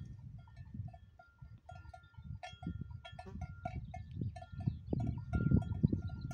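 Bells on grazing cows clinking and ringing irregularly as the animals move their heads, over a low rumbling noise that grows louder near the end.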